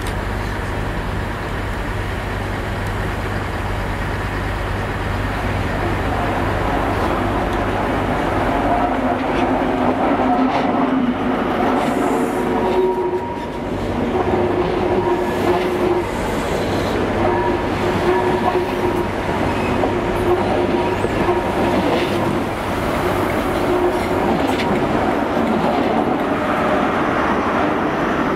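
GWR Class 43 HST (InterCity 125) passing close at low speed, its power-car MTU diesel engines running and the wheels clattering over pointwork. Broken squealing tones come from the wheels on the curves through the middle of the pass.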